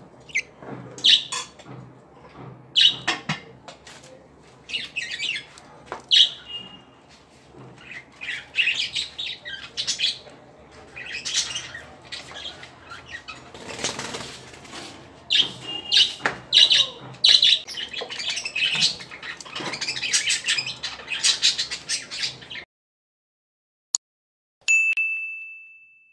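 Budgerigars chirping and chattering in short, rapid, repeated bursts, with a brief rustle about halfway through. The chirping cuts off suddenly about three-quarters of the way in, and a single ringing ding sounds near the end.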